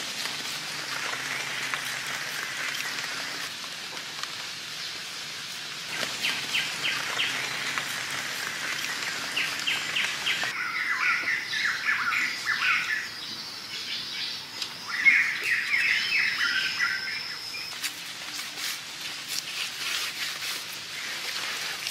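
Forest ambience with birds calling in quick, evenly repeated trills in several bursts through the middle, and a thin steady high tone running alongside them for several seconds. The background changes abruptly about six and about ten seconds in. Faint light slaps of hands working wet mud come near the start and near the end.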